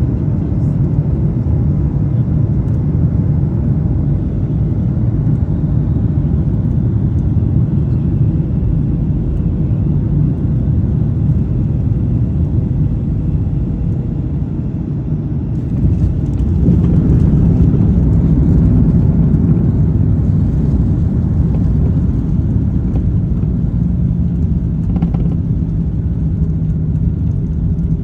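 Boeing 737 cabin noise during landing: a steady low rumble of engines and airflow. About sixteen seconds in it grows louder, adding a steady low hum and a hiss, and it stays up.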